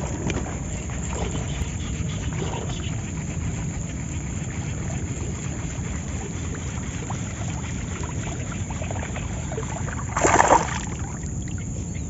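Steady low rumble of a boat under way on the water, with a brief louder noise at about ten and a half seconds.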